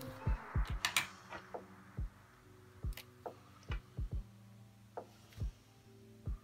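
Quiet lo-fi hip hop music with soft held chords, with scattered light knocks and ticks over it.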